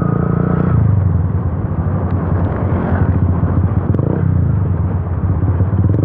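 Yamaha FZ V2's single-cylinder engine running loud through an Akrapovic exhaust with the dB killer removed, heard while riding, its note rising and falling a little with the throttle.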